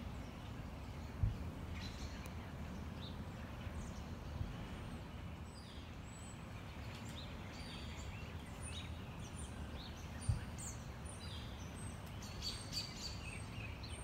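Small birds chirping in short high calls, busier from about halfway through, over a low steady outdoor rumble. Two brief low thumps stand out, about a second in and about ten seconds in.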